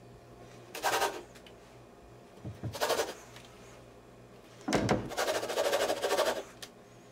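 Metal rim of a small glass pot lid pressed and twisted down through stacked yufka sheets onto a wooden board to cut out rounds. It scrapes three times: short strokes about a second and three seconds in, then a longer grinding twist of about a second and a half near the end.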